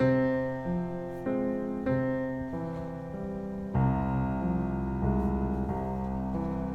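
Background music: piano chords struck in a slow steady rhythm, with fuller accompaniment and bass coming in about halfway through.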